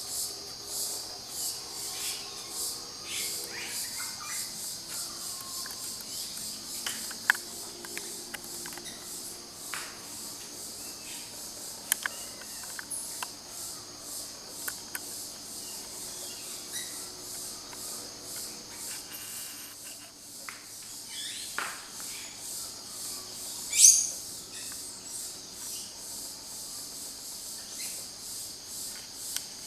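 A steady, high-pitched insect chorus that pulses in a regular rhythm, with scattered short clicks and taps and one louder sharp sound about three-quarters of the way through.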